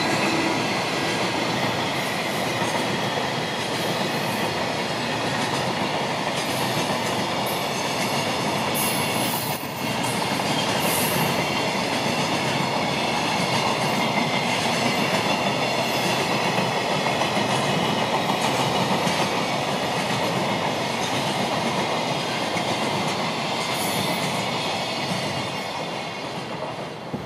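Freight train of container wagons passing at speed, a steady loud rush of wheels on rails. It begins to fade near the end as the last wagons go by.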